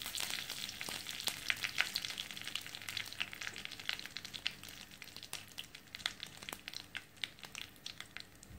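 Curry leaves frying in hot sesame oil with mustard seeds in a kadai: a steady sizzle dotted with many small sharp pops and spits. The sizzle dies down gradually as the leaves' moisture cooks off.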